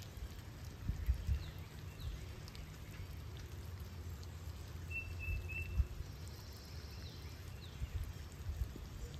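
Steady rain falling, with a low rumble and a few short bird chirps about five seconds in.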